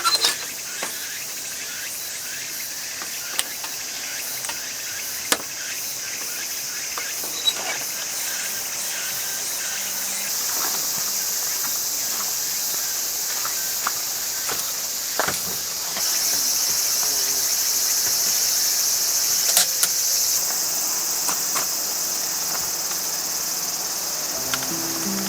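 Steady high-pitched chorus of crickets chirring, with a few scattered light clicks and knocks. The chorus gets louder in steps partway through.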